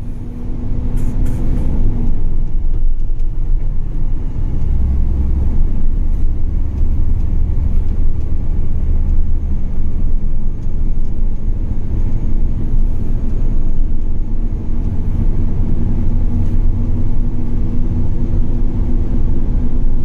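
Concrete mixer truck's diesel engine and road noise heard from inside the cab while driving, a loud steady rumble. An engine drone fades about two seconds in and comes back in the second half.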